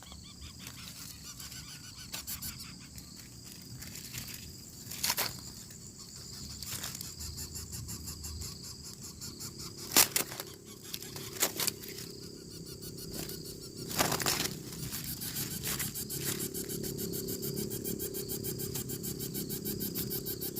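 Insects buzzing steadily in the background, broken by several sharp rustling knocks. From about three quarters of the way in, a fast, even pulsing buzz starts up.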